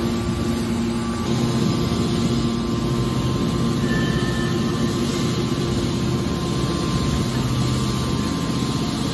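Hydraulic scrap steel baler running: a steady hum from its electric motor and hydraulic pump, with no distinct impacts.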